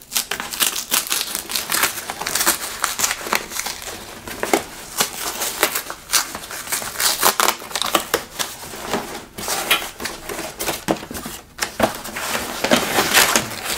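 A paper product label being torn and crumpled off a padded nylon carry bag: continuous crinkling and crackling with many sharp rips and snaps.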